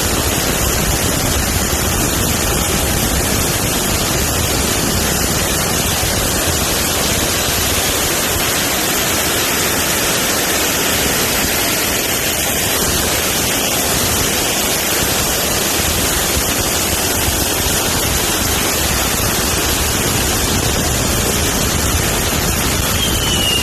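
Safe and sane ground fireworks fountains spraying with a steady, loud hiss. Right at the end a whistle falls in pitch.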